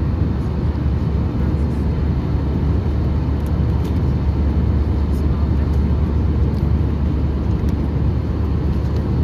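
Steady low rumble with a fainter hiss above it, unbroken and without distinct events: the running noise of a vehicle or aircraft interior.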